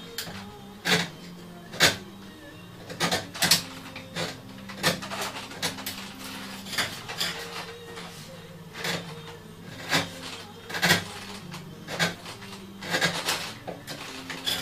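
Short, irregular scrapes and clicks of a small hand tool working on a wooden music box, about one stroke a second, some in quick pairs.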